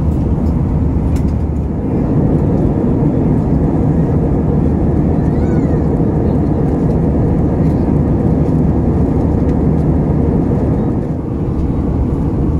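Steady cabin noise of an Airbus A320 airliner in cruise: an even, low rush of airflow and engine sound.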